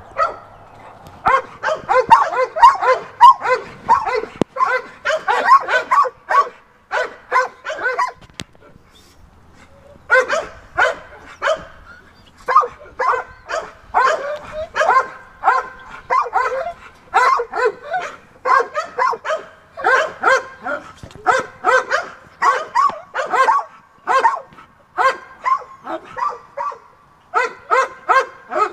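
Dogs barking in long runs of short repeated barks, several a second, with a pause of about two seconds about a third of the way through.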